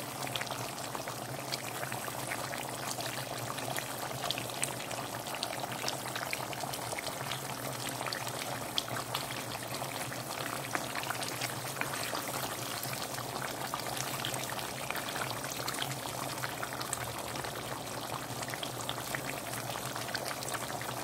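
Asam pedas, a sour, spicy fish stew, bubbling in a pot, with a steady stream of many small pops.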